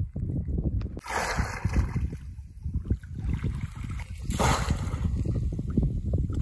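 Water sloshing and splashing as a man wades through a shallow pond and works in the water by hand. There are heavier bursts of splashing about a second in and again a little after four seconds.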